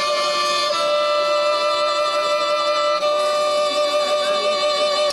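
Violin playing slow, long held notes as a song begins, the note changing about a second in and again about three seconds in.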